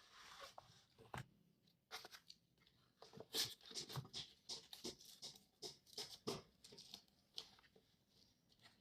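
Quiet rustling, tapping and light clicks from handling an FPV radio transmitter and its packaging, busiest from about three seconds in.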